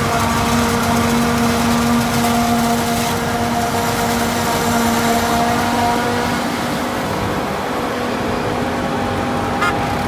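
New Holland FX450 self-propelled forage harvester running at working speed while chopping standing maize for silage, with the tractor hauling the silage trolley alongside. It makes a loud, steady machine hum at a constant pitch that eases slightly in the last few seconds.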